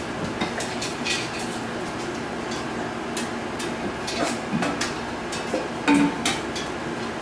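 Stainless-steel cups and chains hanging from a puppy play frame clinking and knocking irregularly as puppies paw and bite at them, with a short squeak about six seconds in.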